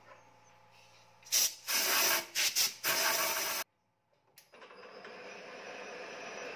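Metal lathe running with its tool cutting a welded steel spindle housing. After a low motor hum, the cut comes in several loud noisy bursts over about two seconds, drops out for under a second, then settles into a steady cutting noise that builds toward the end.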